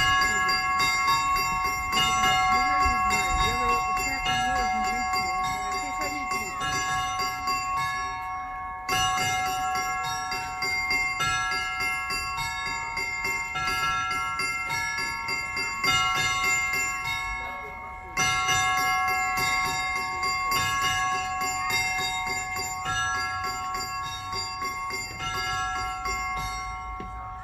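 Orthodox church bells rung by hand in a zvon peal. Clappers strike several smaller, higher-pitched bells, with no deep bass bell heard, and a fresh cluster of strikes comes every two to three seconds over a continuous ringing chord.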